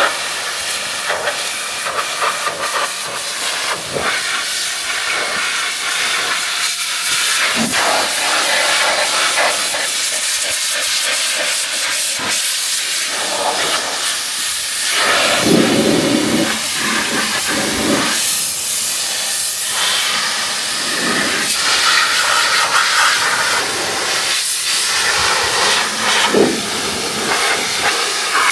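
Pressure washer jet spraying water onto an engine block: a loud, steady hiss whose tone shifts as the spray sweeps across the metal.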